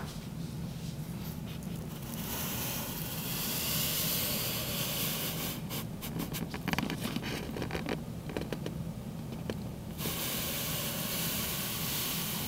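Steady hiss over a low hum, with a run of scratchy clicks in the middle. The hiss cuts back and then returns abruptly about ten seconds in.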